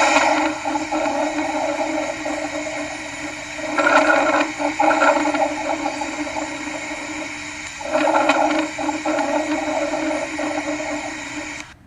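Recording of abnormal lung sounds: noisy breaths that swell about every four seconds, cutting off suddenly near the end.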